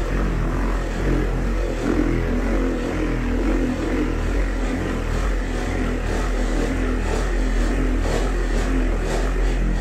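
Corded electric buffer running steadily, its foam pad working polish over a clear plastic dome to take out scratches.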